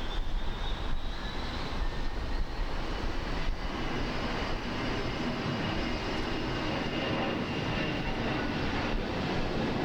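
Jet airliner engines running, a steady rush with a faint high whine that drifts slightly lower in pitch.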